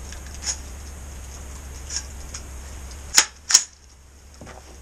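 Gunfire from a 10.5-inch-barrelled 300 Blackout pistol: two sharp, loud cracks about a third of a second apart, about three seconds in. A couple of faint clicks come before them.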